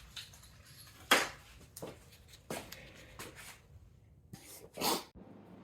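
Small RC truck suspension parts being handled and fitted by hand: about five separate light clicks and knocks, the one near the end longer and louder.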